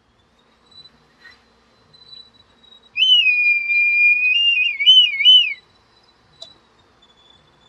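Red kite calling: one long thin whistle about three seconds in, held steady for over a second, then breaking into a quavering warble before it stops.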